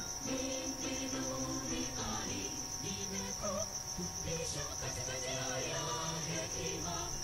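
Steady high-pitched trilling of crickets, with faint background music underneath.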